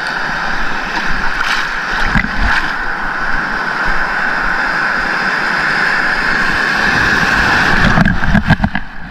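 Surf and choppy sea water washing steadily around a wading angler. About eight seconds in, a wave breaks over the camera with a loud, splashing rush.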